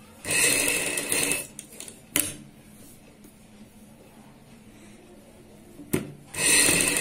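Sewing machine stitching fabric along a buckram neck piece in short runs: one lasting about a second near the start, and another starting just before the end. Between them come a couple of sharp single clicks.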